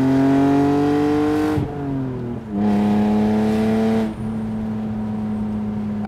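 1999 BMW 328i's 2.8-litre inline-six accelerating: the revs climb, fall through an upshift of the five-speed manual about a second and a half in, and climb again in the next gear. After about four seconds the revs ease back and the engine settles into a steady cruise.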